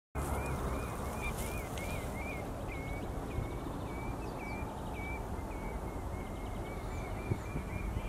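Black-tailed godwit calling: a long series of short, hooked, similar notes, two to four a second, quicker at the start and near the end, over a steady low background rumble.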